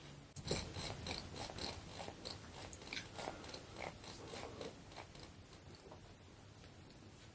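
Soft, irregular crackling and rubbing from hands working over a patient's back on a chiropractic treatment table. The crackles are densest over the first few seconds, then thin out.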